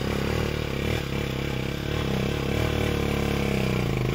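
Small motorcycle engine running at idle, steady, with a slight rise and fall in pitch from light throttle.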